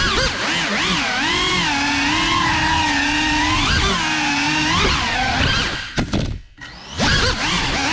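Cinelog35 cinewhoop's brushless motors and propellers whining, the pitch rising and falling with the throttle. Near the end the whine drops away almost to nothing for about a second, then spools back up.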